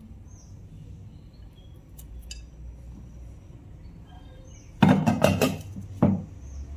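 Kitchen utensils clinking lightly, then a loud clatter of pots and dishes about five seconds in and one more knock a second later.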